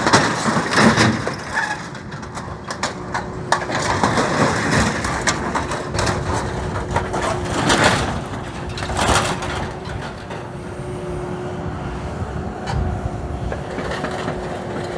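Scrap excavator running with a steady whine while its grab crushes and tears the steel of an old harvester header: repeated metal crunching and cracking, with loud bangs about a second in and again around eight and nine seconds in.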